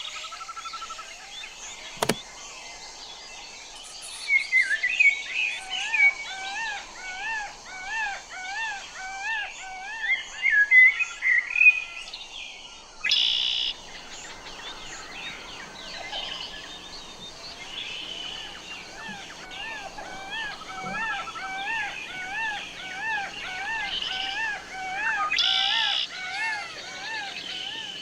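Birds singing: a long run of repeated rising-and-falling whistled notes, about two a second, with other chirps over them. A sharp click comes about two seconds in.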